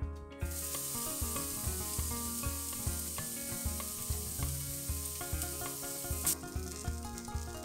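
Diced red onion sizzling in hot oil in a stainless steel pot, the sizzle starting about half a second in as the onion hits the oil. Background music with a steady beat plays under it.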